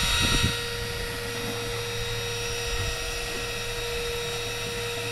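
An engine running steadily aboard a fishing boat: a constant mechanical hum with a steady whine, a little louder for the first half second.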